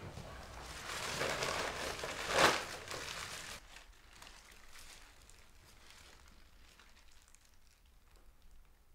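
Paper crinkling and rustling as a fast-food paper bag and burger wrapper are handled, loudest about two and a half seconds in. It stops abruptly after a few seconds, leaving faint room tone.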